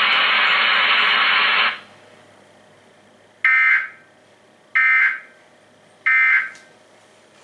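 Emergency Alert System end-of-message code: three short, identical raspy data bursts about 1.3 seconds apart, signalling the end of the national EAS test. They follow a loud steady hiss that cuts off abruptly about two seconds in.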